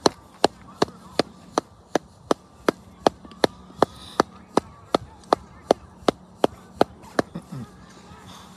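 A steady, evenly spaced run of about twenty sharp knocks, close to three a second, that stops about seven seconds in.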